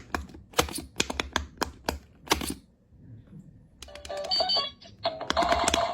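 Electronic pop-it game's silicone bubbles being pressed, giving a quick series of sharp clicks. After a short pause the game gives electronic beeps, then a steady electronic tone runs under more clicks near the end.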